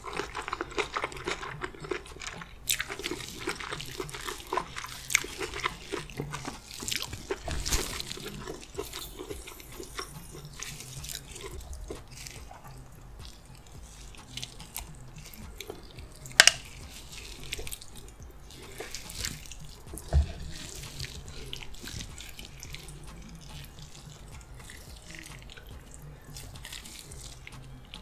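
Close-up eating sounds: chewing with wet mouth smacks, and gloved hands squishing through a dish of seafood boil in thick butter sauce, with sauce dripping. There are many small wet clicks, and a sharp knock about sixteen seconds in and another about twenty seconds in.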